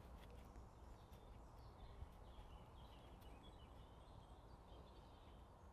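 Near silence: faint outdoor background with a few distant bird chirps.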